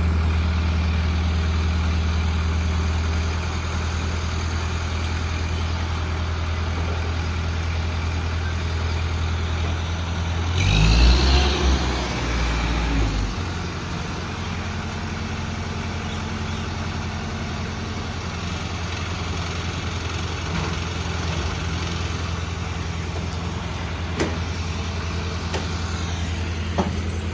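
Heavy diesel engine of a mobile crane running steadily, revving up for about three seconds around eleven seconds in as the crane takes the container's weight, then settling back to a steady run. A couple of faint knocks near the end.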